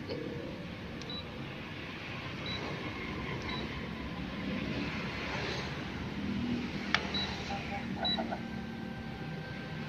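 Canon multifunction copier's control panel giving short, high beeps, about five of them, as its touchscreen keys are pressed, with a single sharp click between the last ones. Near the end a steady whine starts as the machine begins scanning.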